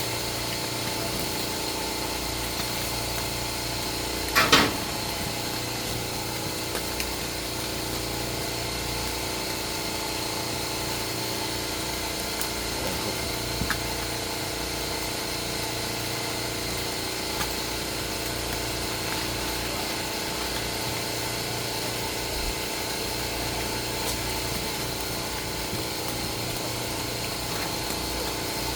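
Steady mechanical hum with several constant tones, like a running motor or engine, with one loud knock about four and a half seconds in.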